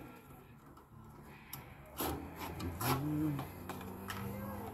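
Cordless 18V drill-driver working at screws inside a heat pump's sheet-metal cabinet. A short whir rises and falls in pitch about three seconds in, amid scraping and light knocks of the tool against metal.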